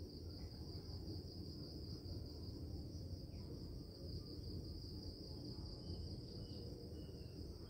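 Steady, unbroken high-pitched insect trill like a cricket chorus, over a faint low background rumble, with a few faint short chirps near the end.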